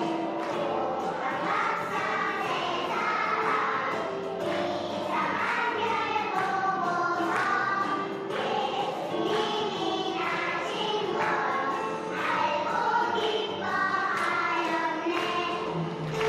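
Children's choir singing a Christmas song, with musical accompaniment.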